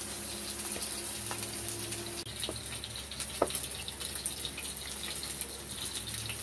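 Breaded chicken and potato wedges frying in hot oil, a steady sizzle with small crackles throughout, briefly broken about two seconds in.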